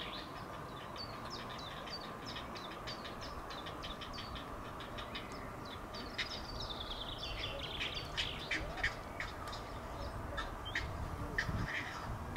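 Grey heron chicks begging to be fed at the nest: a rapid run of short, dry clicking calls, several a second, with a few falling squeaky notes partway through, over a low steady rumble.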